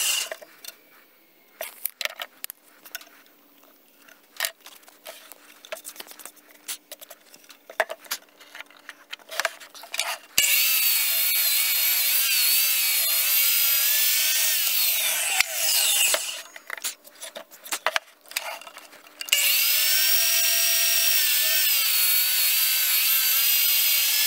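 DeWalt sliding compound miter saw cutting a timber knee brace: the motor whine and blade noise come on abruptly about ten seconds in and run for about five seconds, then come on again for a second cut near the end. Scattered knocks and clicks fill the gaps between cuts.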